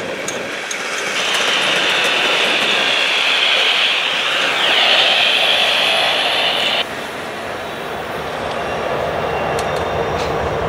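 Freight cars of a Norfolk Southern manifest rolling past at track speed, with a steady high squeal from the wheels that stops abruptly about two-thirds of the way through as the last car goes by. After that a lower rolling rumble slowly grows louder as the next train approaches.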